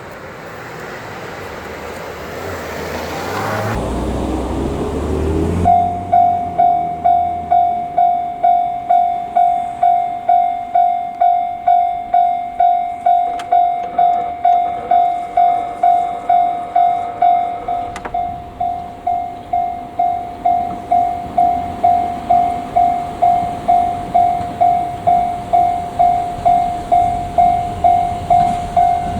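Railway level-crossing alarm ringing: one bell tone repeating evenly about twice a second, starting about six seconds in, warning that a train is approaching. Before it starts, a swelling rush of vehicle noise.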